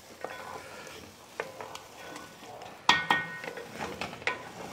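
A spatula stirring a thick chicken korma in a metal pan: scraping and light knocks against the pan, with a louder clank about three seconds in that rings briefly.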